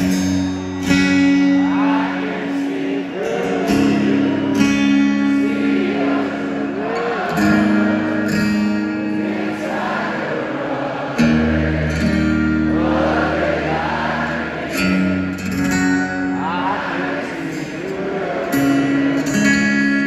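Live rock band playing a slow song: sung lead vocals over acoustic guitar, electric guitar and long held chords, heard from among a concert crowd.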